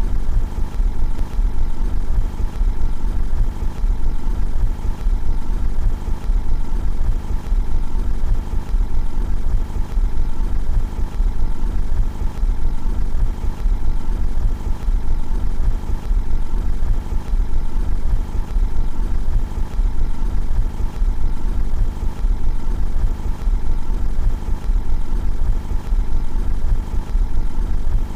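Car engine idling steadily, heard from outside the car, with a deep low rumble and an even rapid pulse that does not change.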